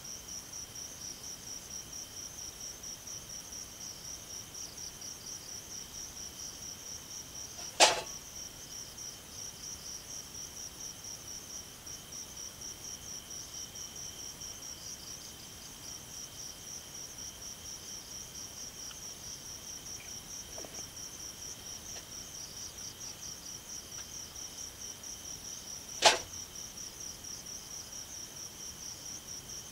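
Night chorus of crickets and other insects: a steady, rapid, high-pitched trilling. Two sharp knocks cut through it, one about eight seconds in and one near the end.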